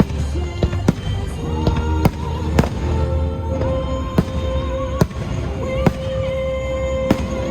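Fireworks bursting in a string of sharp bangs, about a dozen scattered over several seconds, over a music soundtrack with long held notes playing through the show's loudspeakers.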